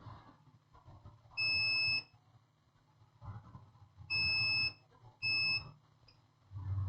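Multimeter continuity buzzer beeping three times, each a steady half-second tone, as the probes touch capacitors on an M.2 NVMe SSD board: the beeps signal a short to ground.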